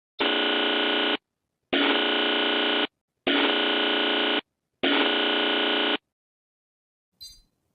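Emergency-alert buzzer sounding four harsh blasts, each about a second long with short gaps between. A brief faint crackle follows near the end.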